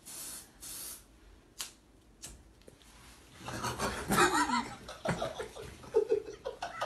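Two short hissing bursts near the start, then stifled giggling and muffled voices from about three and a half seconds in.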